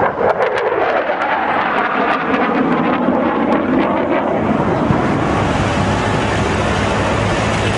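Jet noise from an HAL Tejas fighter's single turbofan engine during a low display pass: a steady, loud rushing roar, with a run of sharp crackles over the first few seconds.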